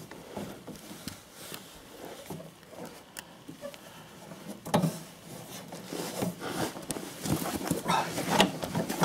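People grunting and breathing hard with effort while stretching a rubber V-belt onto a snowblower's auger pulley by hand, with clicks and rustling from the belt and hands. The effort noises get louder and more frequent about halfway through.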